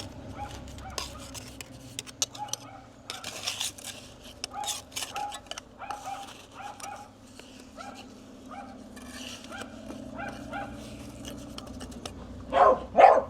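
A dog making short repeated yips and whines, then barking twice loudly near the end.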